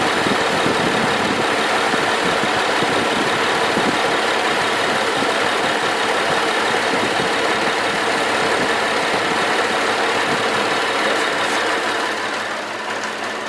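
Lexus IS250's 2.5-litre V6 running at a steady idle, with its accessory belt drive and alternator turning. The sound eases off slightly near the end.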